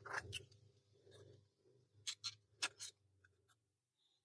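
Faint clicks and taps of small rifle parts being handled: the Daystate Pulsar's firing coil and sleeve sliding out of the rear of the action. A few clicks at the start and a quick run of about four more two to three seconds in.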